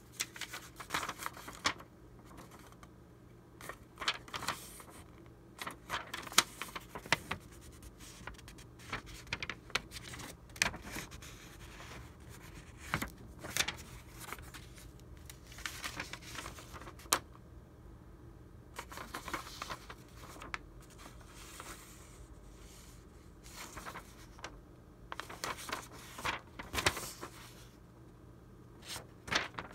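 Sheets of old vintage paper handled by hand, lifted and turned over: irregular crisp rustling and crackling in short bursts, with brief pauses between.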